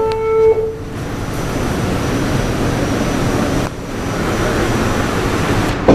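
An R46 subway car's two-tone door chime ends on its lower note about half a second in, followed by the steady rumble and rattle of the car running on the track.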